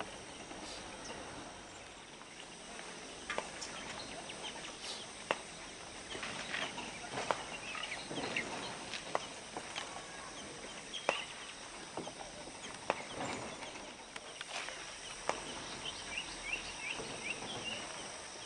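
Outdoor ambience of birds and fowl calling, with scattered short sharp clucks and clicks and brief chirps, several quick chirps near the end. No low rumble is heard.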